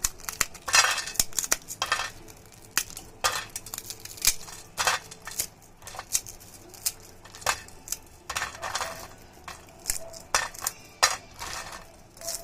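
Crisp fried chana dal batter sheets being broken apart by hand: irregular sharp cracks and short crunches, with pieces clinking onto a steel plate.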